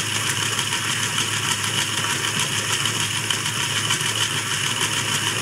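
LEGO electric motor running steadily, turning a turntable ring through a directly coupled tyred drive wheel and two guide wheels: a constant whir with a fine plastic rattle that cuts off suddenly at the end.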